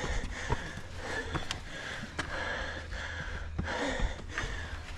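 A hiker's heavy, labored breathing, short hissing breaths in a quick steady rhythm, winded from the steep uphill climb. A few sharp clicks come in between the breaths.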